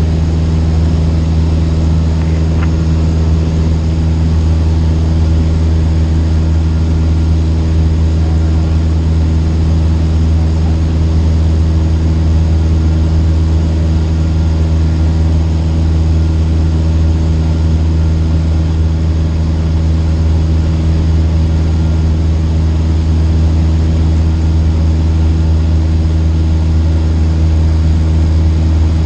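Cessna 152's four-cylinder Lycoming engine and propeller running steadily, a constant low drone heard from inside the cabin.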